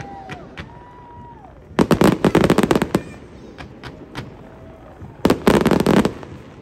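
Fireworks going off in two dense volleys of rapid crackling reports, one about two seconds in and one near the end, each lasting about a second. Scattered single pops sound between the volleys.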